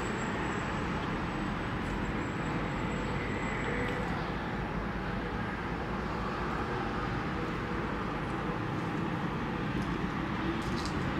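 Steady background noise: an even low rumble and hiss with no distinct events, with a faint high tone over the first few seconds.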